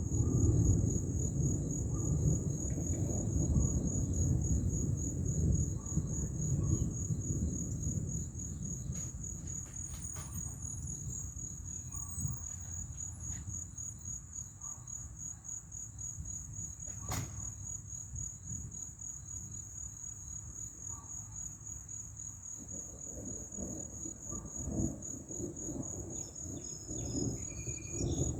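Insects chirping in a steady, fast-pulsing high trill. Under it, the low rumble of thunder dies away over the first several seconds, and a low rumble rises again near the end.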